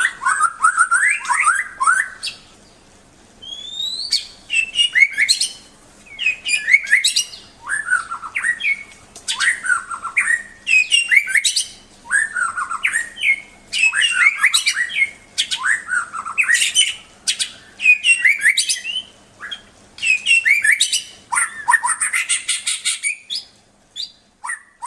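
A murai songbird singing: loud phrases of varied, sweeping whistled notes and chatter, each about a second long, repeated with short pauses between them.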